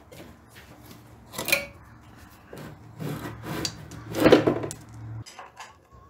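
Air cleaner canister and its rubber intake hose being worked loose and lifted off a diesel tractor engine: rubbing and scraping with a few knocks, the loudest a little past four seconds in.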